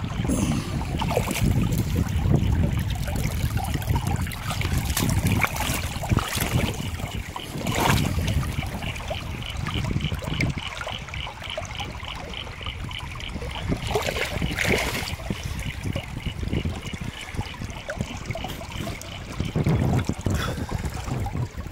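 Creek water rushing and splashing through an aluminium gold sluice fitted with a dream mat, close to the microphone, with a heavy low rumble. A faint, rapid, high pulsing sound, about three beats a second, runs through the middle.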